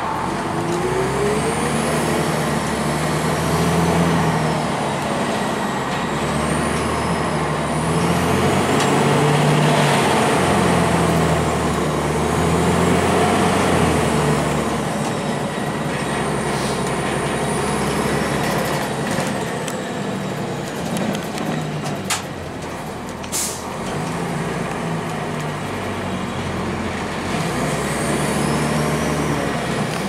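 A 2002 Blue Bird CS transit bus's Cummins ISC diesel and Allison automatic transmission under way, the engine note swelling and easing off several times, with a high whine that rises and falls along with it. Two short sharp sounds come about two-thirds of the way through.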